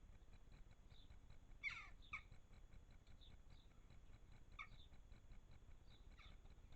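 Harsh bird calls over a low hiss: four short calls, the loudest about two seconds in.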